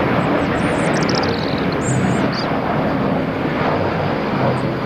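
Airbus A320 jet airliner on landing approach, its engines a steady rushing noise.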